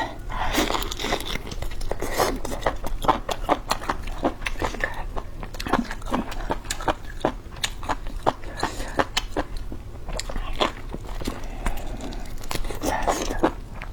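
A person chewing and eating close to the microphone: irregular wet mouth clicks and smacks, with a few brief louder bites.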